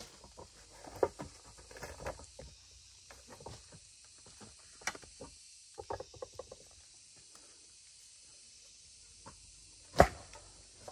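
Irregular knocks and clatters from handwork, a quick rattle about six seconds in, and one loud thump about ten seconds in, over a steady faint high hiss.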